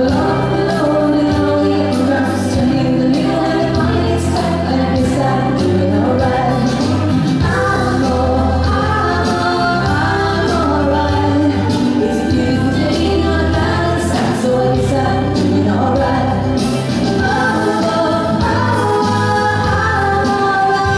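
Line-dance music: a song with singing over a steady, repeating bass beat, playing without a break.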